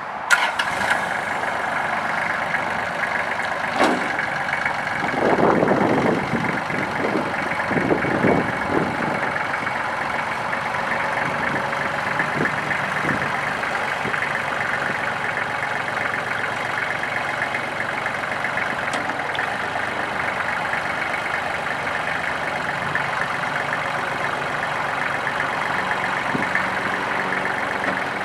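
Kubota L3400HST compact tractor's three-cylinder Kubota D1703 diesel engine running steadily while the front loader is worked. A few louder knocks and swells come between about four and nine seconds in.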